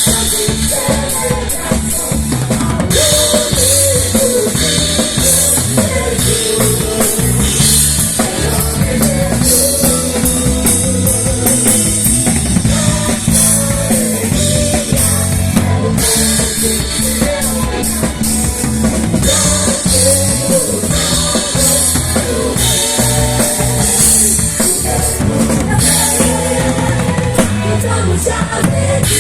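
Live band playing loud, steady music led by a full drum kit, with bass drum, snare and cymbals over a low bass part and a wavering melodic line.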